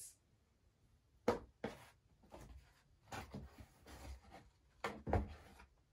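Cotton dust bag rustling as a leather boot is slid out of it, with two sharp knocks about a second in and a dull low knock near the end.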